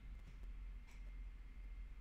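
Quiet pause with only faint room tone: a steady low hum and a faint hiss.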